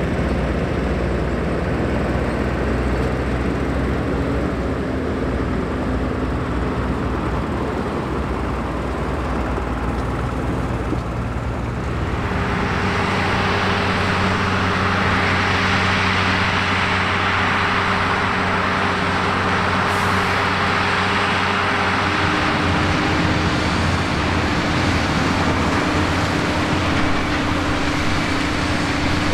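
Fendt Favorit 926 Vario tractor engines running steadily under way. About twelve seconds in the sound changes to tractors working the hay field with rotary rakes, with a steady hiss added over the engine tones.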